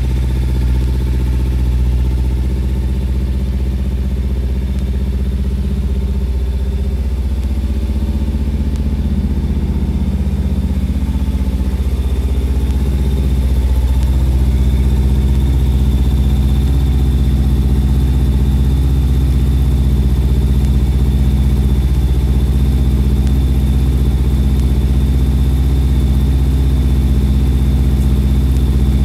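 Kawasaki Ninja 300's parallel-twin engine idling steadily through an aftermarket stainless slip-on exhaust, getting a little louder about halfway through.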